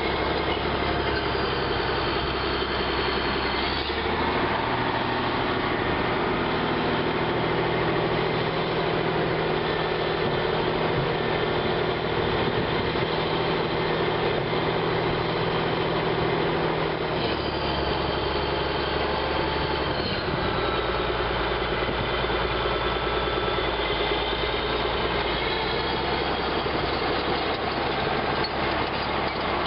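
Caterpillar D8R bulldozer's diesel engine running steadily; its note changes about four seconds in and changes back about seventeen seconds in.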